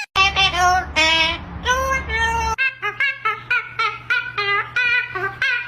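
A pet parrot babbling in a quick run of high, sing-song syllables, like a person singing, over a steady low hum.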